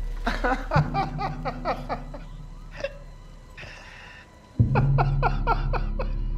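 A man laughing uncontrollably in quick gasping bursts, each one falling in pitch. The laughter dies away about halfway through, then breaks out again suddenly and loud near the end over a low steady hum.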